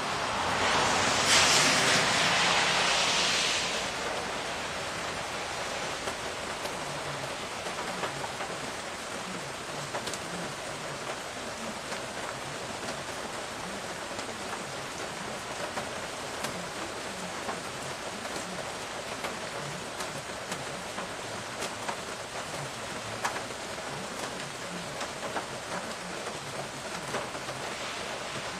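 Steady rain falling on the pavement, lawn and leaves, with scattered drops ticking close by. A louder hiss swells and fades in the first few seconds.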